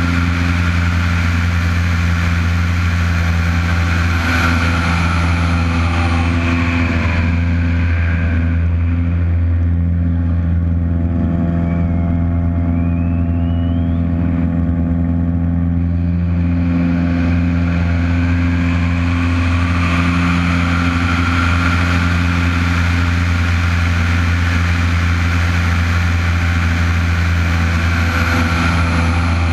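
Aerobatic plane's Lycoming piston engine and propeller running steadily, heard from the wing with wind rushing over it. The rush fades for several seconds in the middle of the manoeuvre and then builds back up.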